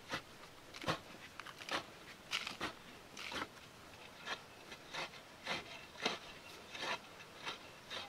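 A hand digging tool chopping and scraping into packed dry earth in short, irregular strokes, about two a second.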